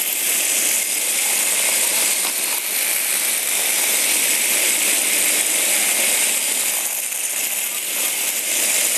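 Several Hexbug Bobble Bots, small vibration-motor toy robots, buzzing and rattling steadily as their plastic bodies skitter over a hard floor.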